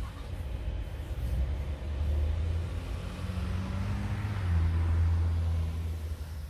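Cars driving past close by: engine hum and tyre noise, growing louder in the second half.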